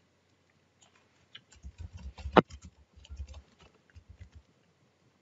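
Computer keyboard being typed on: a quick run of soft key clicks and thumps over about three seconds, with one louder click near the middle.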